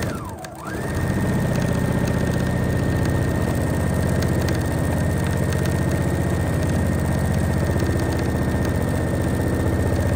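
Husqvarna Viking Platinum 755 Royal Edition sewing machine stitching through a layered fabric placemat. Its motor whine rises in the first second, then holds at a steady high speed.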